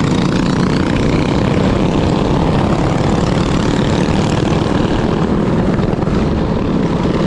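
Minibike's small engine running steadily, with no rise or fall in level.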